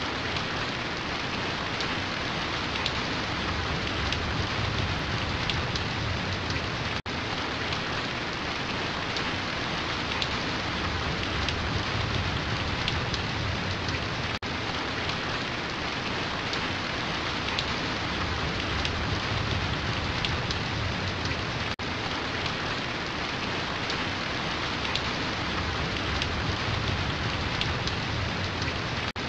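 Steady rain falling, a dense even hiss of drops, with a very brief dropout about every seven seconds where the recording loops.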